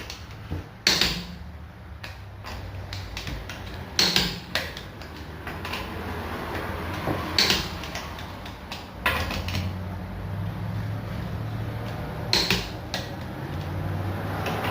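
Metal tools clanking and knocking during tire-changing work: half a dozen sharp clanks a few seconds apart over a low steady hum.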